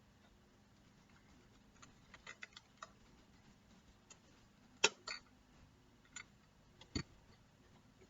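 Faint plastic clicks and taps of a Lego brick model being handled: a scatter of small clicks, then a sharper click nearly five seconds in and a few more after.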